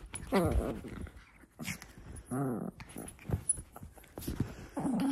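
Small long-haired dog grumbling and whining in play while it mouths and wrestles a person's hand: about three drawn-out, wavering growl-whines, one near the start, one in the middle and one at the end.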